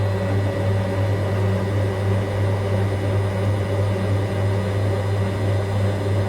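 Servis MK322 washing machine spinning: its brush motor and drum make a steady low hum with a regular pulse in it.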